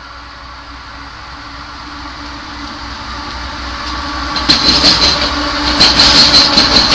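A train approaching and growing steadily louder, with a steady low engine tone. From about four and a half seconds in, its wheels click rapidly over the rail joints as it comes close.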